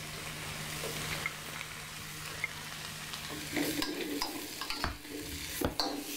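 Chicken, prawns, carrot and caisim stems sizzling in oil over low heat in a stainless steel wok. From about three seconds in, a metal spatula stirs them, scraping and clicking against the wok.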